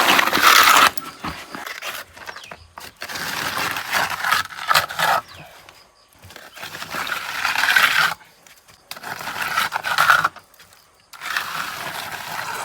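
A trowel scraping wet mortar across a brick wall in long strokes, about five of them with short pauses between, as the wall surface is rendered.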